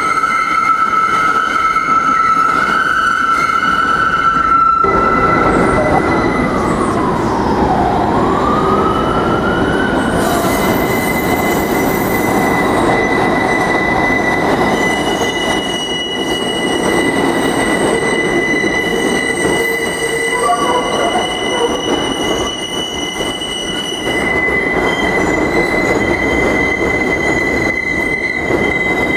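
Steel subway wheels squealing on a tight curve. An R160A train's steady high squeal cuts off abruptly about five seconds in. An R46 train's squeal follows: a tone that dips in pitch and climbs back, then settles into a steady high squeal over the train's running noise.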